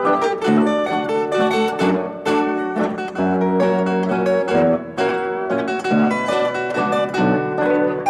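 Background music: a plucked-string instrumental with quick, clearly struck notes.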